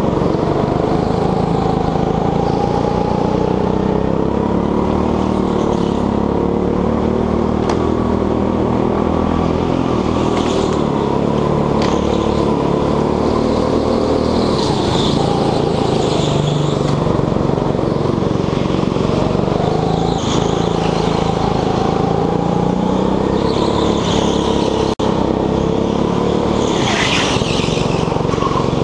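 Petrol go-kart engine heard onboard, running hard for the whole lap, its pitch rising and falling as the driver accelerates and lifts through the corners. Short high squeals from the tyres come now and then in the bends.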